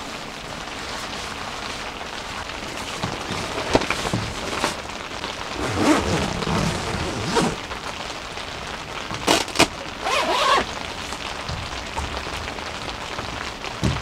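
Steady rain falling on the tent, with intermittent rustling and crinkling of a clear vinyl door panel being fitted over the tent entrance, and two sharp clicks a little after nine seconds in.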